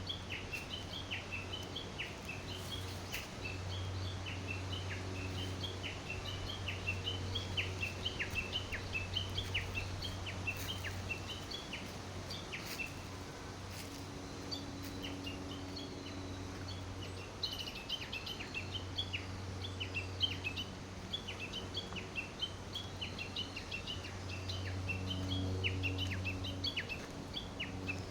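Many small birds chirping together in a dense, continuous chorus of short, quick calls, over a steady low hum.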